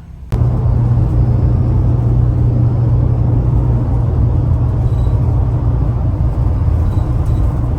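Steady, loud drone of a road vehicle under way, a low hum over a rumble, cutting in abruptly just after the start.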